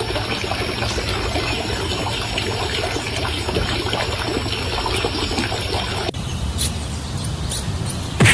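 Steady trickling, water-like noise with a fine crackle, changing abruptly about six seconds in; a short louder sound right at the end.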